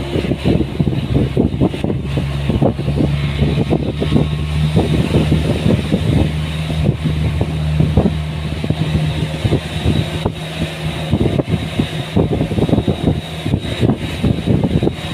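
An engine running at a steady pitch, with a constant stream of rough buffeting and rattles over it.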